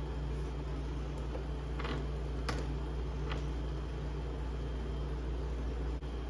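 A steady low hum with a few light clicks, about two, two and a half and three and a half seconds in, of a small bolt being handled and threaded by hand into the plastic seat subframe of a motorcycle.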